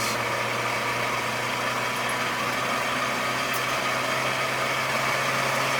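Nissan S13 240SX engine idling steadily.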